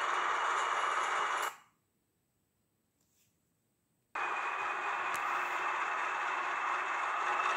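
Model SM42 diesel locomotive running with its sound playing: a steady, hissy diesel engine sound along with the running noise of the moving train. About a second and a half in the sound fades out to dead silence, then comes back suddenly a little over two seconds later.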